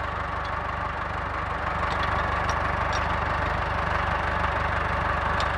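Landini Blizzard 65 tractor's diesel engine idling steadily close by, with a few faint metallic clicks from the hitch pin being handled at the drawbar.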